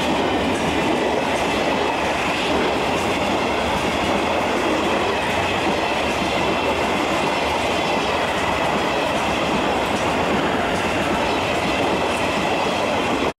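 Empty cement hopper wagons of a freight train rolling past close by: a steady rumble of wheels on rail with clattering over the rail joints and a faint high steady whine from the wheels.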